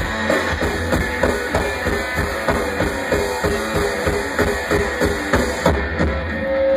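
Rock band playing live: drum kit keeping a steady beat under guitar, with a single held note ringing out near the end.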